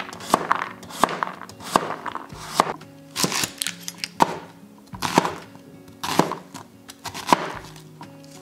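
Kitchen knife chopping carrot and onion on a cutting board: sharp, irregular knife strikes against the board, about one a second, over background music.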